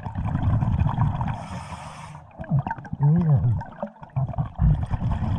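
Scuba diver breathing underwater through a regulator: a hissing inhalation from the demand valve about a second and a half in, between rumbling, gurgling bursts of exhaled bubbles. A short warbling tone that rises and falls comes about three seconds in.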